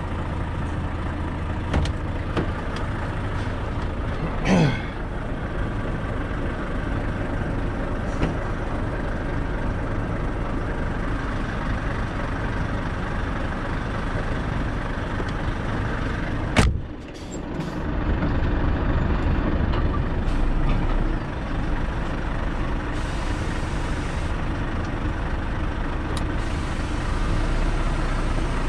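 Heavy lorry running steadily with continuous engine and road noise. About four and a half seconds in a short sound sweeps quickly down in pitch, and a sharp click comes about seventeen seconds in.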